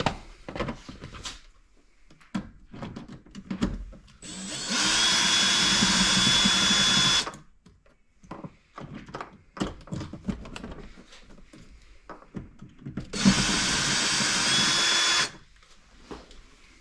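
Cordless drill-driver running twice with a steady whine, about three seconds and then two, backing out the screws of a car's interior door panel; clicks and knocks of handling the tool and panel come between.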